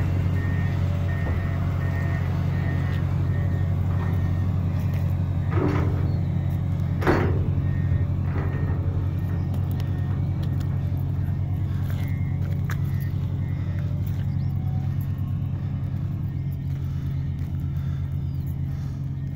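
Heavy diesel engines of roadworks machinery (dump truck, motor grader) running steadily. A beeping alarm sounds about twice a second over the first several seconds, and two short clattering knocks come about six and seven seconds in.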